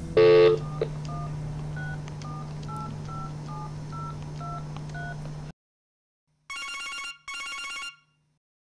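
Cordless phone keypad being dialled: a quick run of about a dozen short touch-tone beeps, about three a second, after a brief loud tone at the start, with a steady low hum underneath. After a sudden cut, an electronic telephone ring sounds in two short bursts close together.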